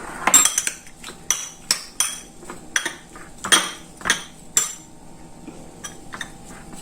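Metal spoon clinking and scraping against a bowl while mixing seasoned shrimp and calamari, a run of sharp clinks that thins out after about four and a half seconds.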